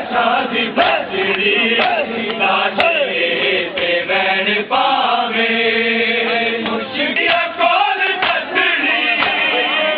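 A large crowd of men chanting a nauha in unison during matam, Shia ritual chest-beating, with the slaps of hands on bare chests sounding as sharp strikes about once a second through the chant.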